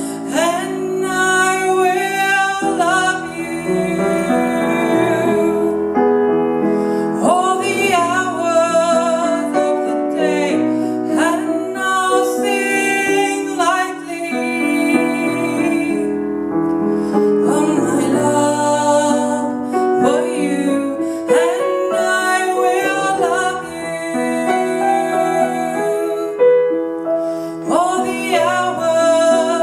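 A woman singing a song with keyboard accompaniment, sustained chords under the sung melody.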